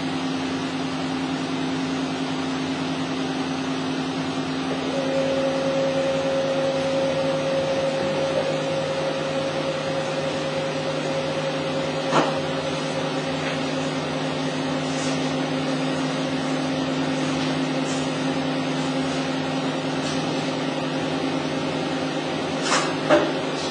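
Tensile testing machine running with a steady hum as its crosshead slowly pulls a plastic film test strip; a higher steady tone joins about five seconds in. One click comes near the middle and a few clicks near the end.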